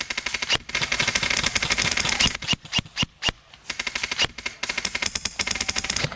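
Airsoft rifle firing on full auto: a long rapid burst, a few separate shots and short bursts about two to three seconds in, then another long burst.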